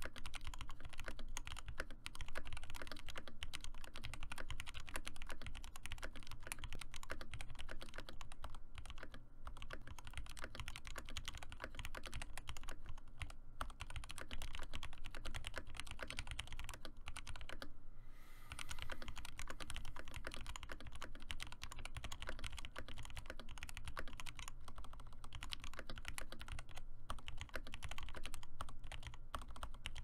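Continuous fast typing on a Discipline 65 custom mechanical keyboard with lubed Alpaca linear switches, a POM plate and an acrylic case: a steady stream of key clacks, broken by a few brief pauses.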